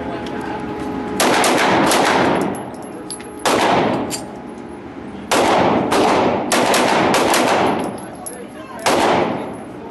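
Firearm shots fired one after another at an uneven pace, about eight in all, each sharp report followed by a long echoing decay.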